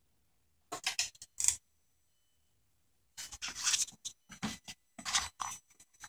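Short irregular bursts of scraping and rustling, with a faint high-pitched whine setting in about three seconds in: the electronic throttle body of an Audi B5 S4 whining with the ignition switched on.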